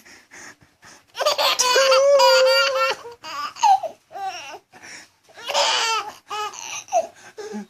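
Baby laughing in bursts, with one long, high-pitched squealing laugh about a second in and shorter bursts of laughter after it: laughter set off by an adult's sneezes.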